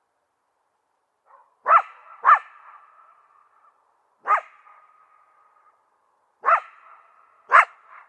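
Coyote barking: five sharp barks, the first two close together and the last three spaced further apart, each trailing off into a short fading tail.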